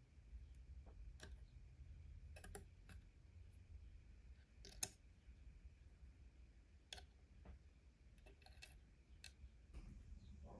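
Sparse small clicks and taps of metal model-kit wheel parts being picked up with metal tweezers and set down on a wooden table, with one sharper click about five seconds in, over faint room hum.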